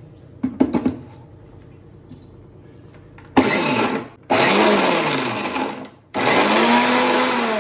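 Preethi mixer grinder grinding wet masala into a paste in its small steel jar, run in three short pulses of about one to two seconds each, the motor pitch rising and falling with each run. A few clicks about half a second in as the jar is set on the base.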